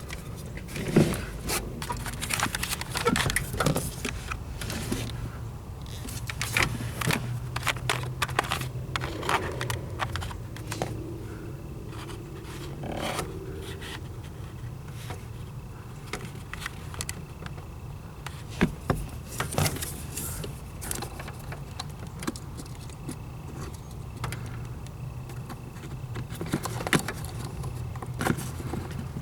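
Hand work on a truck's throttle cable and its fittings: irregular metal clicks, scrapes and rattles, over a steady low hum.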